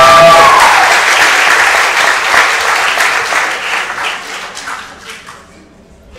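Audience applauding, with a high cheering whoop at the start; the clapping thins out and dies away over the last couple of seconds.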